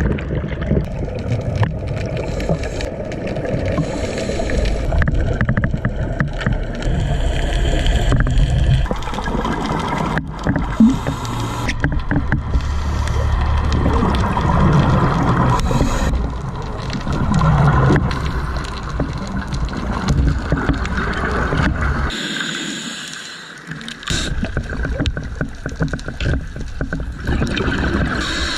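A scuba diver's entry splash and rush of bubbles, then underwater sound of him breathing through a regulator: a muffled rumble with exhaled bubbles gurgling, swelling every few seconds.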